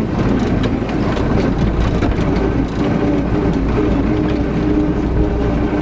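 MTZ-82 tractor's four-cylinder diesel engine running steadily as the tractor drives, heard from inside the cab, with scattered clicks and rattles.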